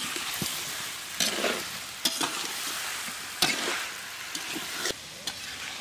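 A metal spatula stirring vegetables frying in a large wok, over a steady sizzle. The spatula scrapes sharply against the pan every second or so.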